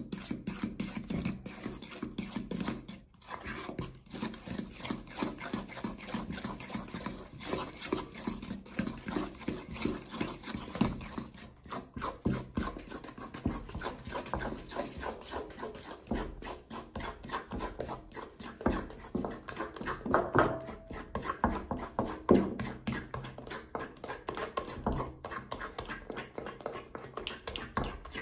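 Fork beating batter in a stainless steel mixing bowl: a fast, uneven run of scrapes and clinks as the tines hit the metal. This is the stage where the dry flour, baking soda and salt are worked into the wet butter, sugar and egg mixture.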